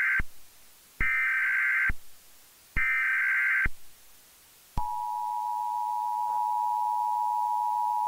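Emergency Alert System signal: the end of one burst of digital data tones, then two more bursts about a second long each, followed about a second later by the steady two-tone EAS attention signal, which holds on. The three bursts are the SAME header that encodes the alert, here a Civil Danger Warning.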